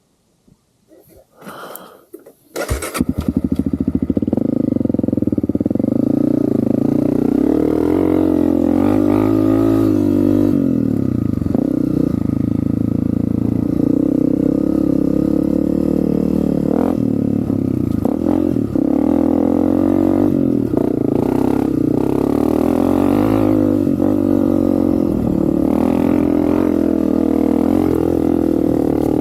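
Honda CRF250F dirt bike's single-cylinder four-stroke engine starting: a few short noises, then it catches about three seconds in and runs steadily, its pitch rising and falling with the throttle.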